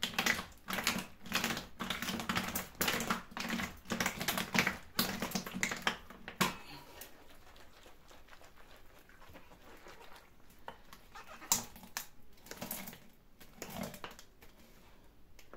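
A sealed pickle container full of raw vegetables and brine being turned over and over by hand to mix it, its contents and walls knocking in a quick clatter of about two to three knocks a second for around six seconds, then only a few scattered knocks.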